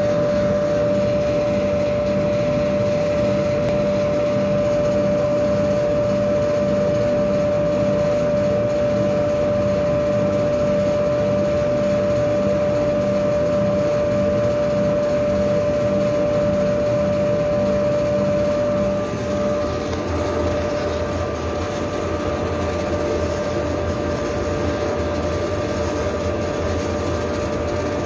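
Laser engraver raster-engraving wood: a steady machine hum with a constant high tone, and a regular pulsing as the head sweeps back and forth. About twenty seconds in, the pulsing stops and a deeper hum takes over.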